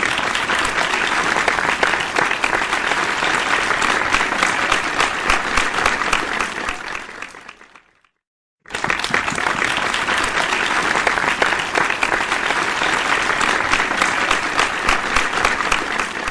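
Crowd applause, dense and steady, fading out about eight seconds in; after a moment's silence a second round of applause starts.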